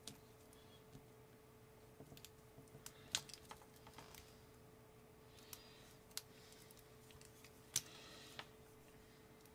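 Scattered small, sharp clicks and taps as a small screwdriver tip and fingers work a wire's pin out of a plastic LiPo balance plug housing, the sharpest about three and eight seconds in, over a faint steady hum.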